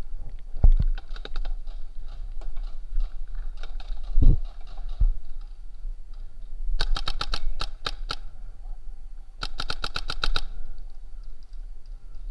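Paintball markers firing rapid strings of shots, about ten a second: two loud bursts after the middle and fainter strings before them. A low thump comes about a second in and another about four seconds in.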